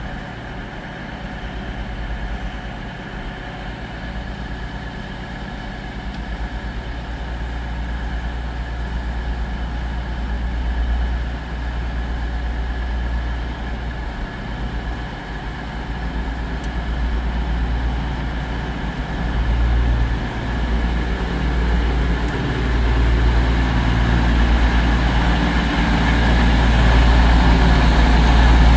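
Class 222 Meridian diesel-electric multiple unit arriving, its underfloor Cummins diesel engines giving a steady low drone with a few steady tones above it, growing gradually louder as the train draws in.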